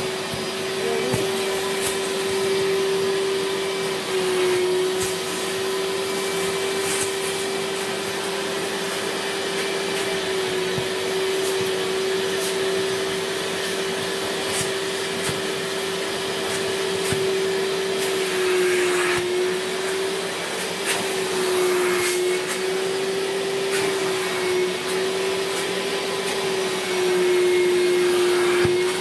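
Wet-extraction upholstery cleaner's vacuum motor running with a steady whine over a hiss of suction as the hand tool is drawn over a mattress. The pitch dips slightly a few times, most near the end.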